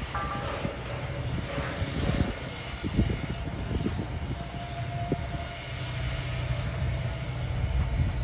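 Reading & Northern 2102, a 4-8-4 steam locomotive, moving slowly under power: a steady low rumble with exhaust chuffs at uneven intervals.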